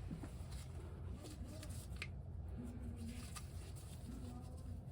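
Faint scraping and rustling of handling work on the vent pipe, with a few light clicks, over a low steady hum.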